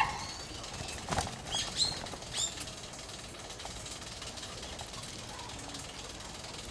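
Bicycle rolling along a paved path: steady rolling noise, a sharp knock at the start and another about a second in, and a few short high chirps or squeaks around two seconds in.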